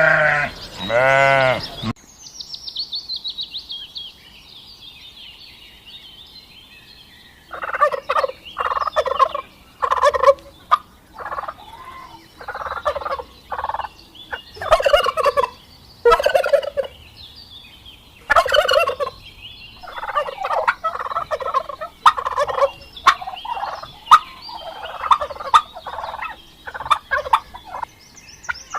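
Two bleats at the start, then a run of high chirps falling in pitch. From about 7 seconds in, domestic fowl call over and over in short, rapid runs.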